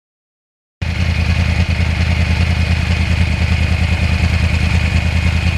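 2009 Yamaha R1's crossplane inline-four engine running at a steady speed, with a thin steady whine above the low rumble. It cuts in suddenly out of dead silence about a second in.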